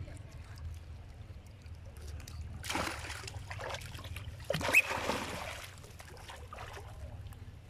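Monkeys splashing in pond water, in two bursts about three and five seconds in, the second the louder.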